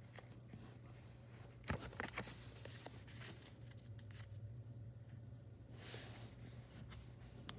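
Faint rustling and soft taps of origami paper being unfolded and creased by hand on a desk, with a sharper click near the end, over a low steady hum.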